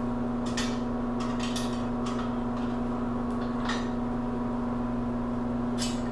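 Light metallic clicks and taps as the guide of an AK rivet-pressing jig is handled and lifted out, over a steady low hum.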